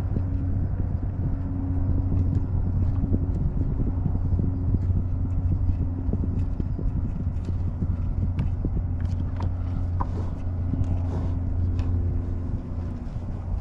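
Steady low engine hum, with light irregular clicks and knocks over it.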